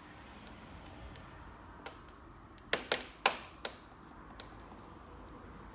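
A few sharp clicks and ticks from a K-bar leverage bar pulling on a glued Centipede dent-pulling tab on a car's rocker panel, the metal and tool under load. The clicks are scattered, with the loudest bunched together in the middle.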